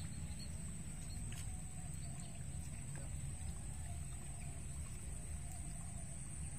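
Quiet outdoor ambience: a low steady rumble with a thin, steady high whine, and faint short wavering animal calls in the distance.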